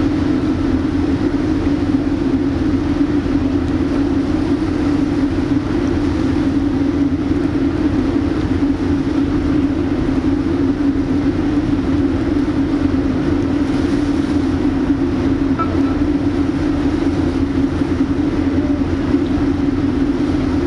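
Steady engine drone with a constant low hum and a noisy rush above it, unchanging throughout.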